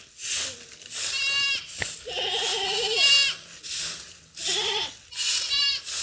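A goat bleating four times, one call longer and wavering, over the regular scratching strokes of a short hand broom sweeping bare dirt ground.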